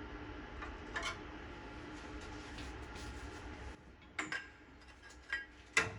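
Light metallic clinks and taps of sheet-metal patch panels being handled, over a steady low hum that cuts off about two-thirds of the way through. Just before the end come the first sharp hammer blows on the sheet metal.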